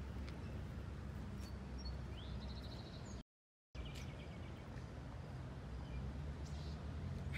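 Small birds chirping, with a short rising trill about two seconds in, over a steady low outdoor rumble. The sound drops out completely for half a second just after three seconds in.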